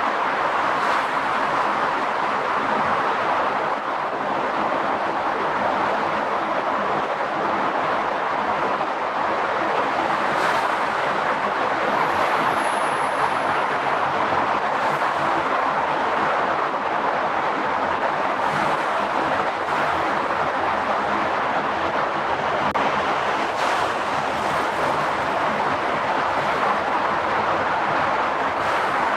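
A car driving steadily at speed: continuous tyre and wind noise, with a low engine hum underneath.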